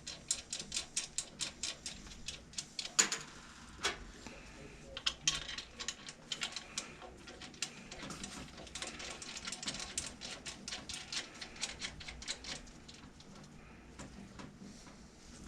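Ratchet wrench clicking in quick runs, several clicks a second with short pauses, as bolts holding a pump base plate to an electric motor are run in and tightened. A couple of louder knocks come about three and four seconds in.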